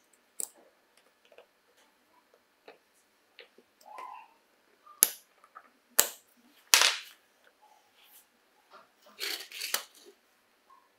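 Small sharp metallic clicks and snaps as a steel pick works the retaining ring and sleeve off an impact driver's bit-holder chuck, with three louder clicks around the middle and a short run of clicks near the end.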